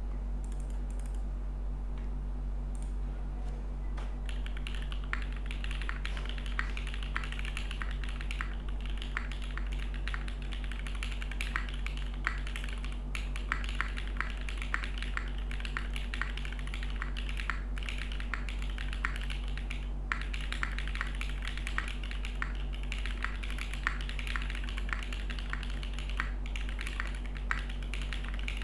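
Typing on a Geonworks F1-8K mechanical keyboard with Geon black switches and GMK Jamon keycaps: a fast, continuous run of keystrokes starting about four seconds in, over a steady low hum.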